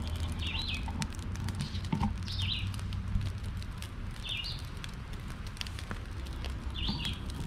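A songbird repeating one short, high, twittering phrase about every two seconds, four times, over scattered small crackles and clicks and a steady low rumble.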